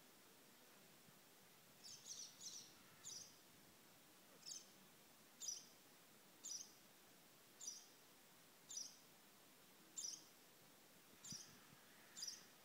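African grey parrot giving soft, short high-pitched chirps, about a dozen of them at roughly one a second, starting about two seconds in.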